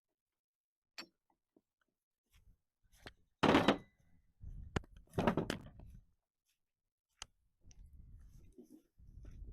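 Metal tools and parts being handled on a workbench: a click, then two heavier knocks with a short ring, another click and a low rumble near the end.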